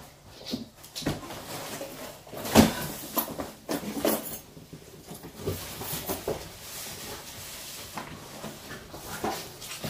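Large cardboard flat-pack furniture carton being tipped up on end and handled: cardboard scraping and rustling with several thumps, the loudest about two and a half seconds in.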